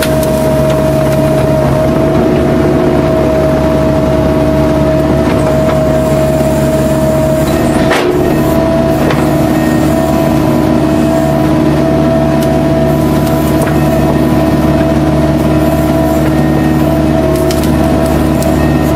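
Kubota U-45 mini excavator's diesel engine running steadily at working speed, with a steady whine over its drone. A single sharp crack sounds about eight seconds in.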